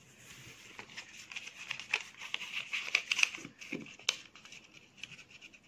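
A square of thin craft paper crinkling and rustling as it is folded and creased by hand, with a run of small sharp crackles through the middle.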